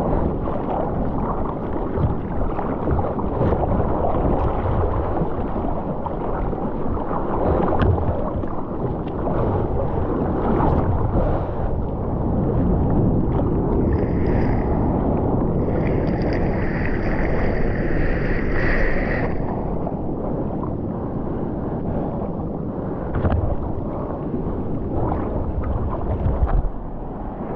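Sea water sloshing and splashing around a waterproof action camera held at the waterline on a bodyboard, as the rider paddles through choppy water. Wind on the microphone adds to the rush.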